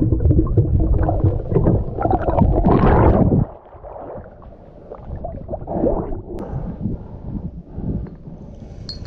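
Underwater gurgling and bubbling heard through an underwater camera, low and muffled, cutting off suddenly about three and a half seconds in. After that, quieter water splashing and churning at the surface.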